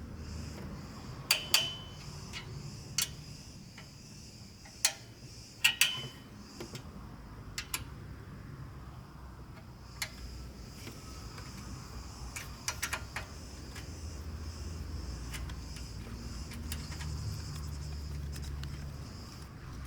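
Sharp, separate metallic clicks and clinks of hand tools and parts being handled while an exhaust is taken off a motorcycle. A few of them ring briefly. They come at irregular intervals, thinning out after about thirteen seconds, over a low steady background hum.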